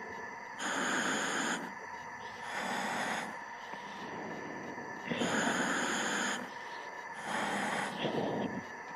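A diver breathing in a helmet, heard over the dive comms line: two slow breaths, each an out-and-in pair of rushing air about a second long, over a faint steady hum from the line.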